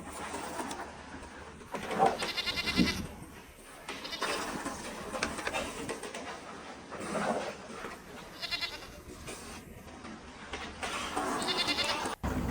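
Goats bleating: about three loud, quavering calls with a shorter, weaker one between them.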